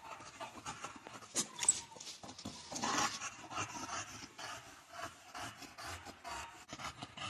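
Dogs, a boxer and an English bulldog, breathing and panting close by, with scattered sharp clicks and scrapes; the sharpest click comes a little under two seconds in.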